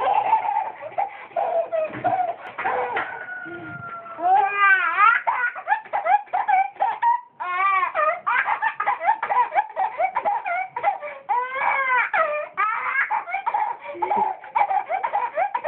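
A toddler laughing hard: long strings of short, high-pitched laughs, one after another, with one brief pause about seven seconds in.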